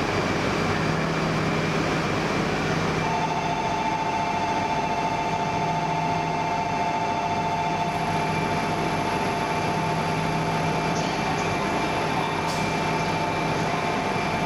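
A JR East 200 series Shinkansen standing at the platform, its onboard equipment humming steadily. A steady high two-note tone starts about three seconds in and holds.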